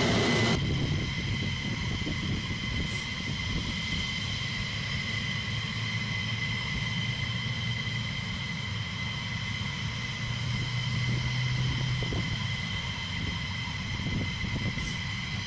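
F-15E Strike Eagle twin jet engines idling on the ground: a steady high whine of several fixed tones over a low rumble. It opens with half a second of louder jet noise that cuts off abruptly.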